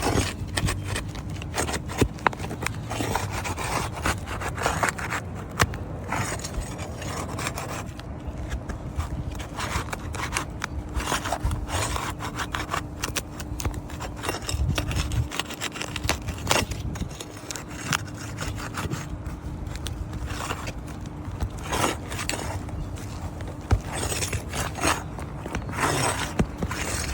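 A tool scraping and rubbing under old three-tab asphalt shingles as a shingle is worked loose, in irregular rasping strokes with scattered clicks and knocks.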